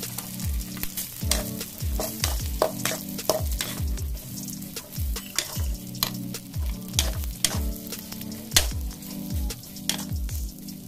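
Metal spatula scraping and knocking against a metal wok as cooked rice is stirred and its clumps broken up, over a light sizzle of frying oil. The scrapes and knocks come in quick, irregular strokes.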